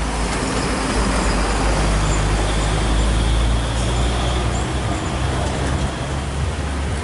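Traffic on a tight bend: a heavy truck and a bus passing close with a deep engine rumble, which fades about two-thirds of the way through as cars follow round the curve with steady engine and tyre noise.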